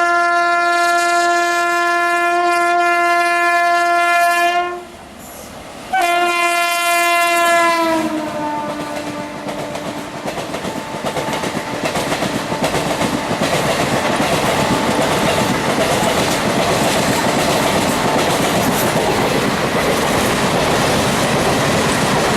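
WAP-7 electric locomotive's horn: one long blast, a break of about a second, then a second blast whose pitch drops as the locomotive passes. The express's coaches then run past at speed, wheels clattering steadily over the rail joints.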